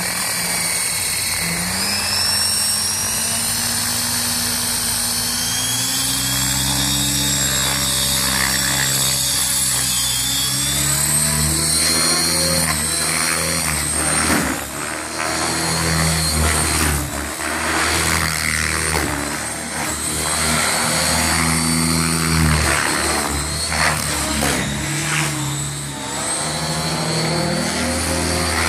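700-class radio-controlled helicopter's rotor and drive whining as it comes up to speed on the ground, then lifting off and flying, the pitch of the whine and rotor hum rising and falling again and again.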